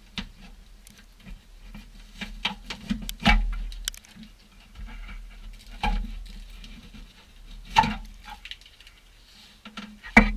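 Irregular knocks, clicks and light clatter of hand tools and sheet metal being worked, with louder knocks about three, six, eight and ten seconds in.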